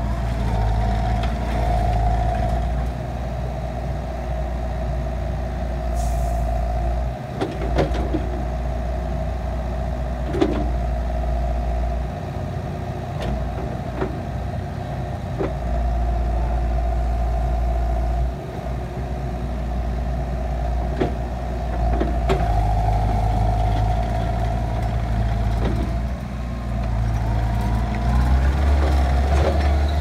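Takeuchi TL150 compact track loader driving and working, its diesel engine running steadily with a whine over it, rising and falling with load. A few sharp knocks now and then.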